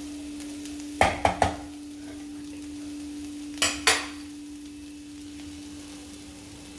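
Metal utensil clinking against a cooking pan while the stir-fry is stirred: three quick knocks about a second in, then two more past the middle, over a steady hum.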